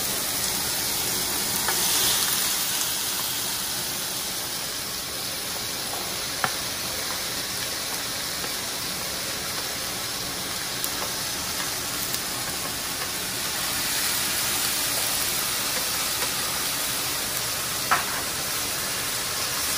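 Chopped vegetables (tomato, onion, garlic and the rest) sizzling as they sauté in a little oil in a pan: a steady frying hiss, with a couple of sharp clicks.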